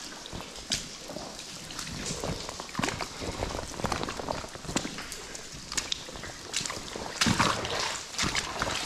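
Footsteps in waders sloshing through shallow water and wet rubble, with water dripping and splashing down from the tunnel roof. Uneven steps and splashes, the heaviest about seven seconds in.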